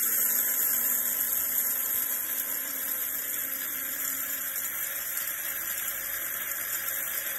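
Small electric grinder running steadily at full speed, blending dry rice into powder in its clear plastic cup.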